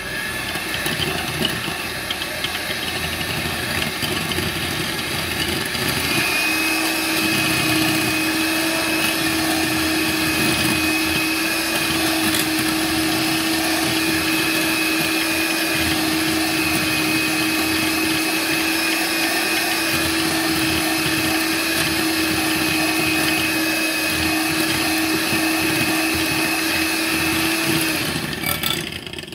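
Electric hand mixer running, its beaters whipping butter in a glass bowl: a steady motor whine that takes on a clear steady pitch about six seconds in and cuts off just before the end.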